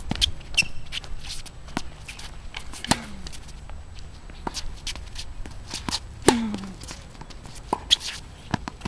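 Tennis rally on a hard court: sharp pops of racquets striking the ball and the ball bouncing, several with a short falling ring, the loudest about six seconds in. Shoes scuff on the court between shots.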